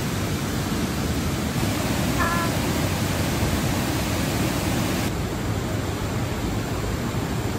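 A steady, even rushing noise whose tone shifts slightly about a second and a half in and again about five seconds in, with a brief high chirp about two seconds in.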